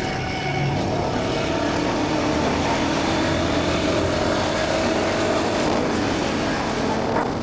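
Royal Enfield Guerrilla 450's single-cylinder engine running steadily at highway speed under a constant rush of road noise, its pitch lifting briefly near the end.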